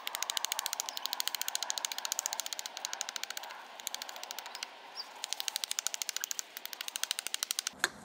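Small Gränsfors hatchet trimming the mushroomed lip off a wooden splitting wedge in quick, light strikes, about eight a second, in runs broken by short pauses.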